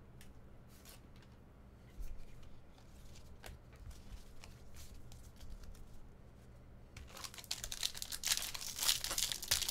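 A sealed Bowman Draft trading-card pack's foil wrapper being torn open and crinkled. It starts about seven seconds in, after a quiet stretch of soft card handling.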